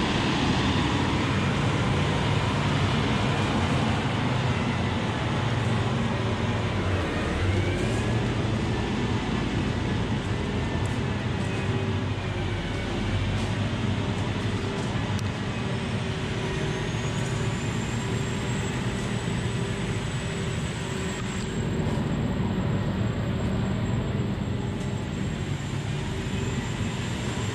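Steady rumble of a running engine, with a faint high whine that rises about halfway through and then holds.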